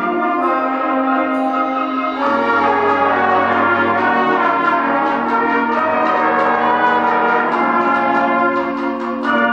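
School concert band playing sustained chords with bell-like percussion ringing over the brass. The texture grows fuller and louder about two seconds in.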